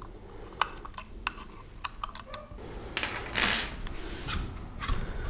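A 4 mm Allen key clicking against the barrel screws of an ATA Arms ASR rifle: about eight small metallic ticks in the first two and a half seconds. A short scraping rustle follows about three seconds in as the rifle is handled.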